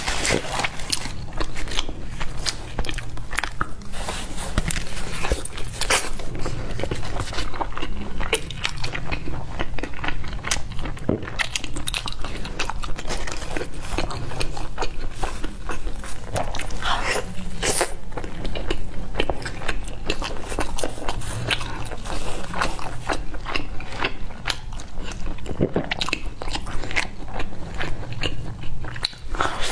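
Close-miked biting and chewing of a folded pizza slice, with many small crunches and mouth clicks.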